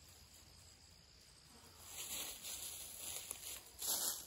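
Rustling footsteps through dry leaves and brush, starting about two seconds in after a quiet start and coming closer.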